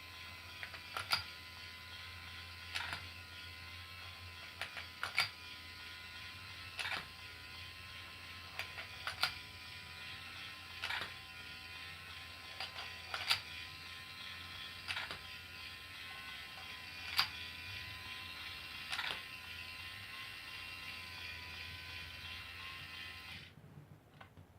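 Motorized Pororo automatic domino toy running: a small motor and gears whir steadily, with a sharp click about every two seconds from its mechanism. The motor cuts off suddenly near the end.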